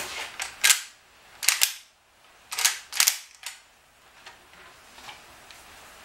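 Actions of old Winchester rifles, a lever action among them, worked by hand to check that the magazines are empty: several sharp metallic clacks over the first three and a half seconds.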